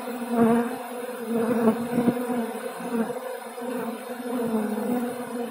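Dense buzzing of a mass of honey bees at a hive entrance during robbing, a strong colony raiding a weak one for its honey. A steady drone that wavers in pitch, with the odd bee passing close.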